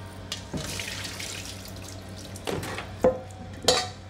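Salt water running and draining through a mesh sieve as washed salmon roe is tipped in at the sink, followed by a stainless steel bowl knocking and clanking with a brief ring, loudest twice about three seconds in.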